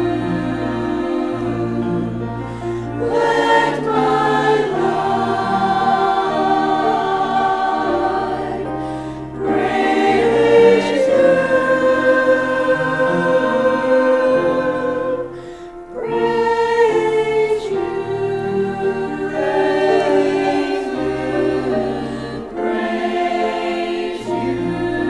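Church choir singing in parts over low, sustained accompaniment notes. The singing breaks off briefly about two-thirds of the way through, then resumes.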